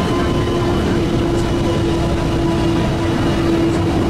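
Swiss-built diesel rack railcar of the Pikes Peak Cog Railway running on the Abt rack, heard from inside the passenger car: a steady drone of engine, gearing and wheels with a constant hum held over it.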